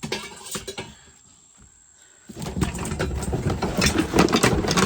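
Items being rummaged through and handled: rustling with many short clicks and knocks, loudest over the second half.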